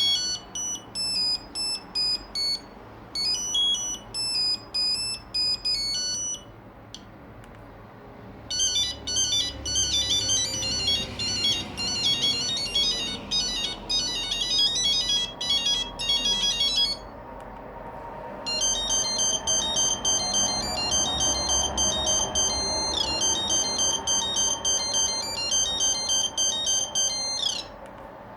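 Nokia 2100 mobile phone playing its built-in monophonic ringtones through its small speaker: quick melodies of high beeping notes, one tune after another. The first tune stops about six seconds in, a new one runs for about eight seconds after a short pause, and a third follows after another brief gap.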